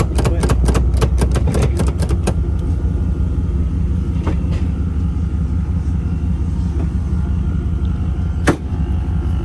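A vehicle's tailgate latch and handle being worked, giving a quick run of sharp clicks in the first couple of seconds and one loud click near the end. The tailgate stays shut because the hatch has to come up first. A steady low rumble runs underneath.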